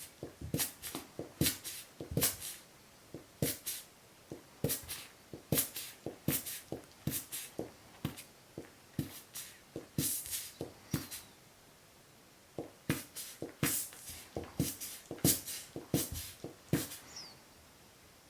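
Jack Russell terrier chewing a tennis ball, the ball giving off a string of sharp popping clicks (a "peko peko" sound) as it is squeezed and released, roughly two a second. The clicks pause for a second or so around the middle and stop shortly before the end.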